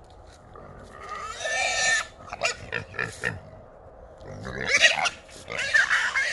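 Feral hogs squealing in a small trap: one long squeal about a second in, a few short squeals just after, then two long, loud squeals in the second half.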